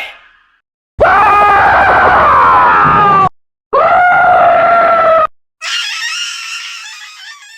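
Three separate screams, one after another with short silences between: a loud one of about two seconds, a second of about a second and a half, then a higher, thinner scream that fades away.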